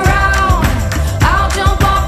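A male voice singing a gospel song over a backing track with a steady drum beat and bass.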